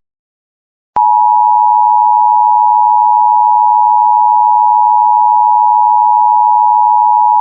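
Emergency Alert System attention signal: the EAS two-tone alert, two steady pitches sounding together, starting sharply about a second in after a short silence and held loud and unchanging.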